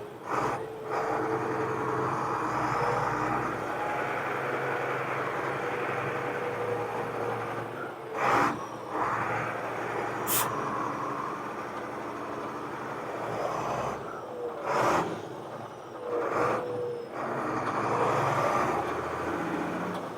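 International crane truck's diesel engine running as the truck is driven slowly, its note changing as it is shifted through the gears. Several short, loud sharp sounds break in, about eight seconds in and again near 15 and 16 seconds.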